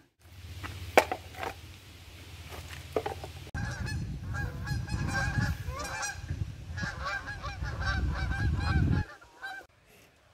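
A flock of geese honking in flight, many overlapping calls starting about a third of the way in and stopping shortly before the end, over a low rumble.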